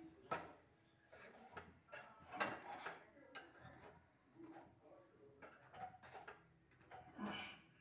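Metal kitchen tongs clicking and tapping against a gas stove's wire roasting grate as a roti is turned over the flame. Scattered light clicks and knocks, the loudest about two and a half seconds in.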